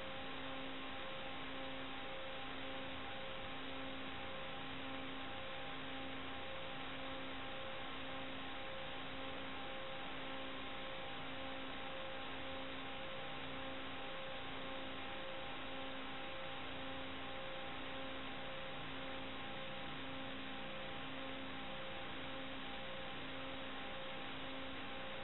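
Steady radio static from an air-traffic-control radio feed between transmissions. Through it runs a faint low hum that pulses about once a second, with a few faint steady tones.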